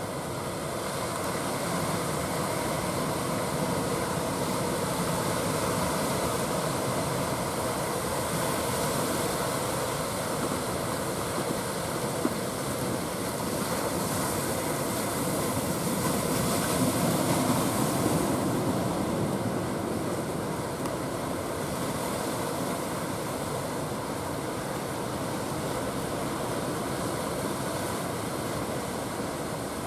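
Steady drone of a motor fishing boat's engine under the wash of breaking surf, the surf swelling a little louder a bit past the middle.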